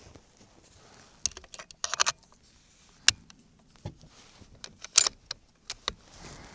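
A string of sharp metallic clicks and clacks from the Savage 110 bolt-action rifle as its action is worked by hand, chambering a round from the magazine. The two loudest clacks come about three and five seconds in.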